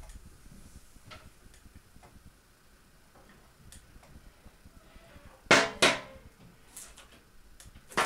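Sharp knocks of a ceramic mixing bowl and metal fork being handled: two close together about five and a half seconds in and one more near the end, with a few faint clicks before them.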